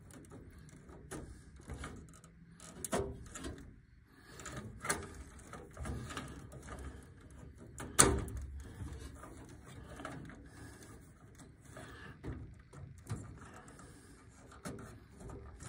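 Furnace control board wiring being handled: wires rustling and spade connectors clicking as they are pulled off and pushed onto the board's terminals, with one sharp click about eight seconds in.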